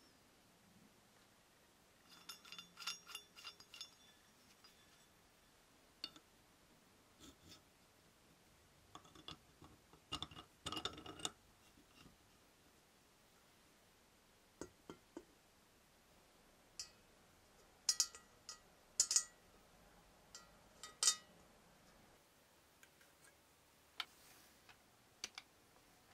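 Scattered metallic clinks and clicks of old electric radiator heater parts being handled and fitted together: a cast-iron base, a copper reflector bowl and small metal fittings. A run of ringing clinks comes about two seconds in, with further bursts of clicks in the middle and later on.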